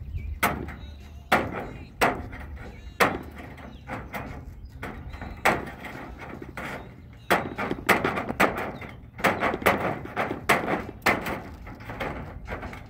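Hand snips cutting half-inch wire hardware cloth, with a sharp snap at each cut through the wire. The snips are spaced out at first and come quicker, two or three a second, in the second half.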